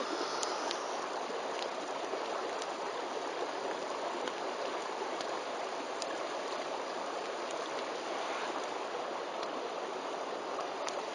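Wood bonfire burning with a steady rushing hiss and a few sharp crackling pops scattered through it.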